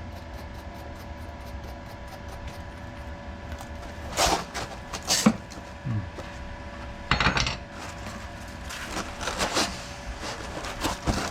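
A welder laying short bursts of weld into the sheet steel of an Austin Allegro's sill, several brief crackling runs starting about four seconds in, over a steady hum.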